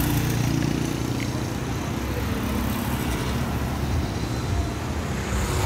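Road traffic passing close by, motorcycles among it: a steady hum of engines running.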